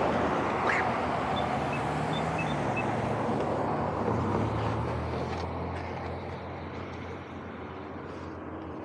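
Road traffic passing through an intersection: a pickup truck's engine and tyres going by close, the engine pitch rising and falling, then the noise easing off over the second half. A few short high chirps sound near the start.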